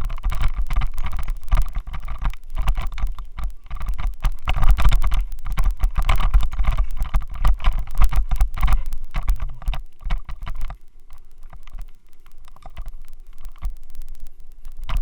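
Rapid rattling and buzzing from a loose helmet mount shaking the Xiaomi Yi action camera, over a heavy low rumble. It eases off for a few seconds about eleven seconds in, then builds again. The vibration noise comes from the faulty helmet mount.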